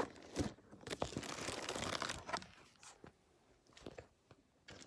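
Plastic packaging rustling and crinkling as hands rummage through a bag of wrapped items, dying down after about two and a half seconds to a few faint clicks and knocks of handling.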